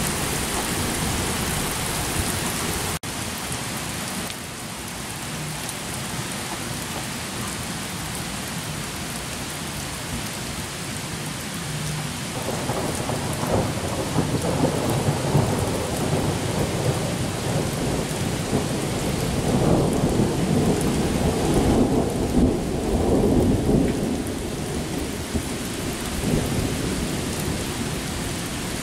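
Steady rain falling during a thunderstorm. A long roll of thunder builds from about halfway through, is loudest a few seconds before the end, then fades.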